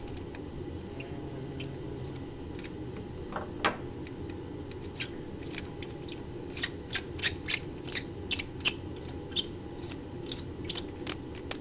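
An irregular run of sharp metal clicks, about two or three a second, starting about five seconds in, from hand work on the hardware of a Delco alternator. A single clink comes a little before, over a faint steady room hum.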